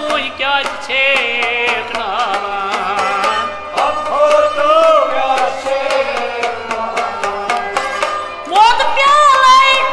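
Kashmiri folk ensemble playing: a sung vocal line over harmonium, bowed sarangi and plucked rabab, with a steady hand-struck rhythm on a clay-pot drum (matka). The voice gets louder and higher about two-thirds of the way through.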